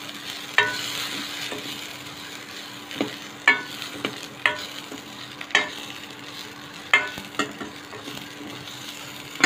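Onions, green chillies and curry leaves frying in oil in a metal pan, a steady sizzle, stirred with a metal spatula that clinks against the pan every second or so.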